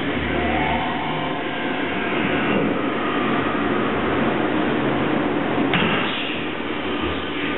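Air bike's fan whooshing steadily as the rider pedals. About three-quarters of the way in comes a single thump as a man in a weighted vest, holding dumbbells, lands a jump on a wooden plyo box.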